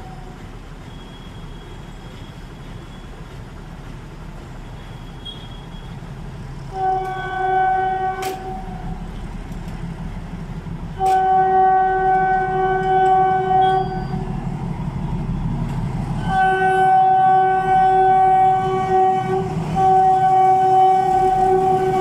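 YDM4 metre-gauge diesel locomotive coming closer and passing, sounding its horn in four long blasts, the last two almost back to back. Under the horn its diesel engine chugs, growing louder as it nears.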